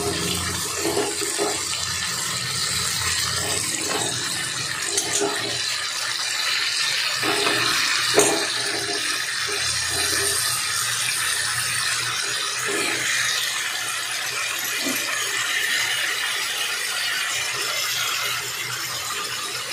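Raw chicken pieces sizzling in hot oil and onion masala in a pan, a steady frying hiss. A metal spatula knocks against the pan now and then, most sharply about eight seconds in.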